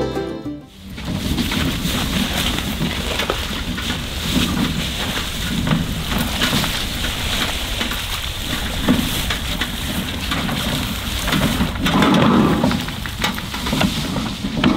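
Footsteps crunching and rustling through dry grass and fallen leaves, with irregular low thuds roughly once a second and a louder stretch near the end.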